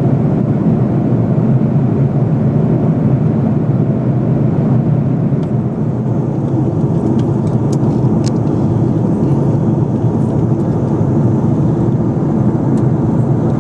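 Steady jet airliner cabin noise in flight: the even rumble and rush of the engines and the airflow past the fuselage, with a few faint ticks near the middle.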